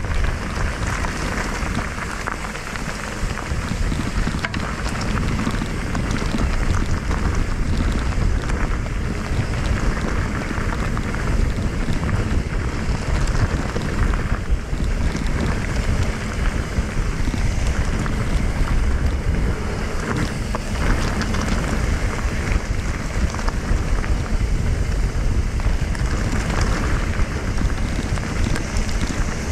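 Steady rush of wind on the microphone with mountain-bike tyres rolling over a dirt trail during a downhill ride.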